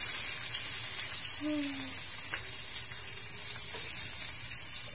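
Sliced vegetables sizzling in hot oil in a frying pan. The hiss is loud at first and slowly dies down, then swells briefly about four seconds in.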